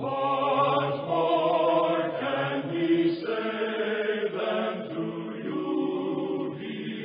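Slow choral music for the programme's opening theme: voices sing sustained chords that change about once a second.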